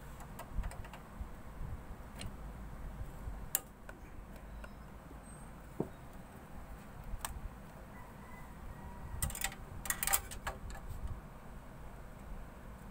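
Scattered light clicks and taps from hands working on PC case parts and cables, with a quick run of several clicks about two-thirds of the way through.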